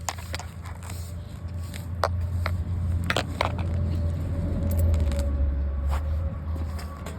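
A vehicle passing by: a deep rumble that swells and fades over about five seconds, with a faint steady whine at its loudest. Scattered small clicks and scrapes sound over it.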